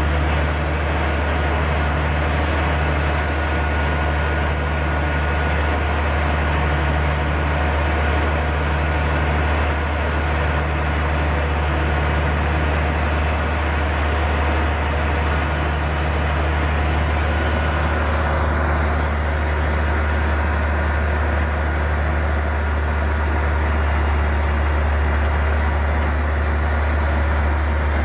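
Heavy diesel engine running steadily at a constant speed, a deep unchanging drone.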